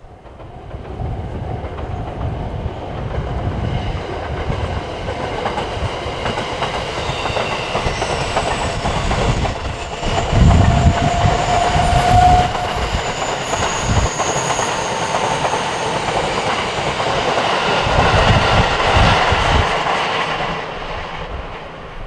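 A train on the Hokuriku Main Line passing close by, its wheels clattering over the rail joints. The noise comes up suddenly about half a second in, stays loud for about twenty seconds with heavier low pounding about halfway and again near the end, and begins to fade at the very end.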